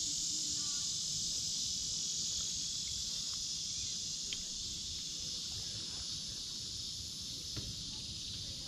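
Steady, high-pitched chorus of insects droning from the riverside trees, over a low rumble, with a couple of faint clicks about four and seven and a half seconds in.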